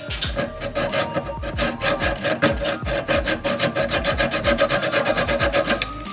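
Hacksaw cutting through a steel rubber-bushing sleeve in a BMW 2002 differential carrier: quick, even rasping strokes, many to the second, with a music beat underneath.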